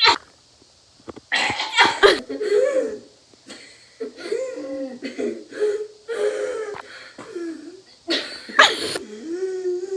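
A person coughing and laughing: three harsh coughing bursts, at the start, around two seconds in and near the end, with long wavering vocal sounds between them.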